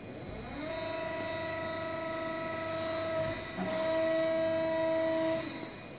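Hydraulic drive of a 110-ton CNC press brake whining as the ram cycles through a bend: a steady whine that rises to pitch in the first second, breaks off briefly a little past halfway with a low knock, comes back louder, then dies away near the end.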